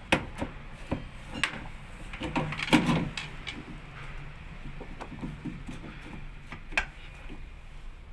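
Hard clicks and knocks of parts being handled during work on a washing machine drain pump, about a dozen in all over a steady low hum. They are busiest and loudest around three seconds in, with a last sharp click near the end.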